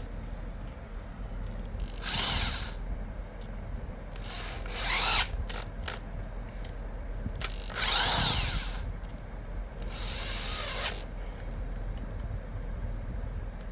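Handheld power screwdriver-drill running in four short bursts, its motor pitch sweeping up and down in each, with a few sharp clicks between the second and third bursts.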